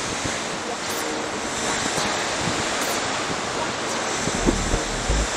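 Open-sea waves washing with a steady rush of water, and wind buffeting the microphone. Near the end a low bass line of music comes in under it.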